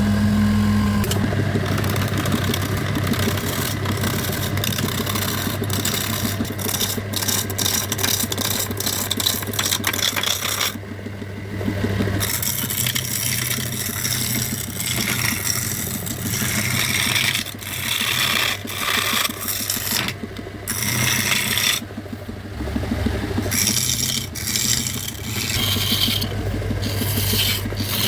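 A power tool's motor hums steadily while a tool scrapes and rasps against wood in rough, chattering passes. The scraping pauses briefly a few times while the motor keeps running.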